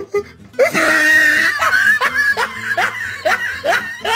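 A man laughing: a loud outburst about half a second in, then a run of short falling 'ha' sounds, about two to three a second.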